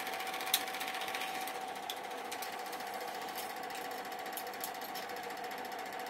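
Super 8 film projector running: a fast, even mechanical clatter from the film-advance mechanism over a steady motor hum, with a sharp click about half a second in.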